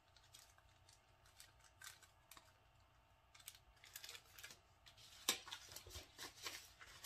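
Faint handling sounds of paper and packaging: scattered small clicks at first, turning into busier rustling and clicking from about halfway in, as a card is put into an order package.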